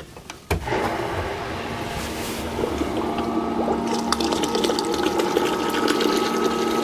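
A small submersible sump pump switches on with a click about half a second in, then runs steadily with a constant hum. It is circulating distilled white vinegar through a tankless water heater to descale it, and the liquid churns and splashes back into the bucket.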